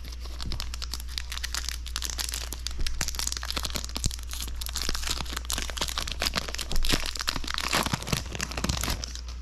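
Foil Magic: The Gathering booster pack wrapper being torn open and peeled back by hand, giving a dense, continuous run of crinkling and crackling.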